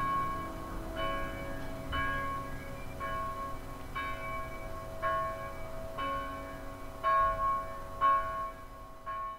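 A single bell ringing at one steady pitch, struck about once a second, each stroke ringing on into the next. The strikes grow fainter near the end.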